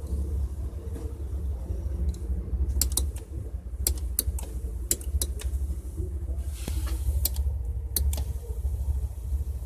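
Low, steady rumble of a car engine idling, heard from inside the cabin, with a run of sharp clicks and taps in the middle.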